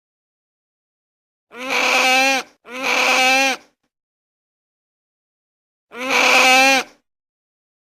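Sea otter calling: three wavering, pitched cries of about a second each. Two come in quick succession, then a third a few seconds later.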